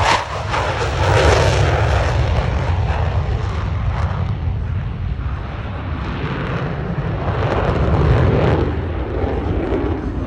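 Blue Angels F/A-18 Super Hornet's twin jet engines at takeoff and climb-out power: loud, rough jet noise with a heavy deep rumble, swelling about a second in and again near the end.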